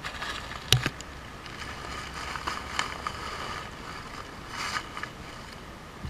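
A plastic litter bag being handled and filled, with rustles and scattered clicks and one sharp knock about a second in, over a steady rush of brook water.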